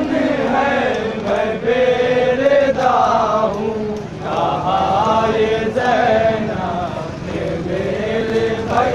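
Men chanting a noha, a Shia mourning lament, in a wavering melody that rises and falls, with a short break about four seconds in.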